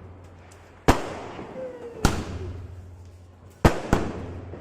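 Firecrackers going off: four sharp bangs at uneven intervals, the last two close together, each followed by a fading echo.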